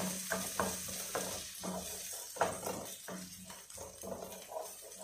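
Diced onions sizzling as they fry in a wok, stirred with a wooden spoon that scrapes and knocks against the pan about twice a second.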